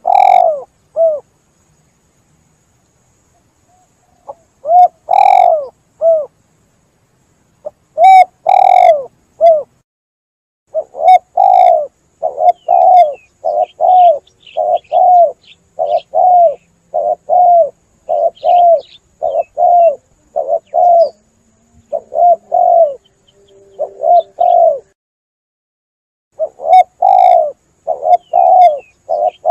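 Spotted dove (tekukur) cooing: repeated low coos in short phrases, with pauses of a few seconds near the start and again near the end. Faint, higher chirps of other birds sound behind the coos in the middle.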